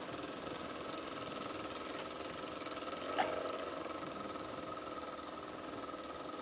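Small boat's outboard motor running steadily under way, a constant even drone. A brief sharp sound stands out about three seconds in.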